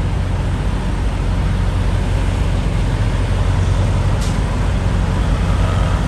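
Semi-truck diesel engines running at low revs with a steady low rumble. A single short, sharp high click cuts through about four seconds in.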